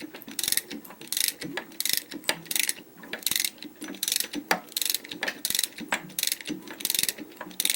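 Exhaust cam phaser of an Opel A18XER engine clacking as the camshaft is rocked back and forth with a wrench, among a run of ratcheting clicks about twice a second. The clack is free play in the worn exhaust phaser, which the mechanic takes for the knock the owner complained of.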